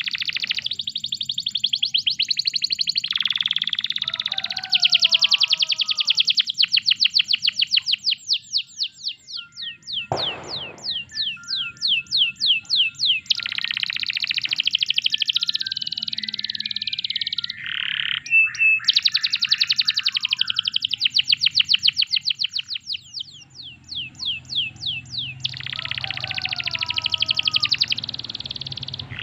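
Domestic canary singing a long continuous song of fast trills and rolls, with many runs of rapidly repeated high notes and a few lower warbled phrases, broken once by a short sharp click about ten seconds in.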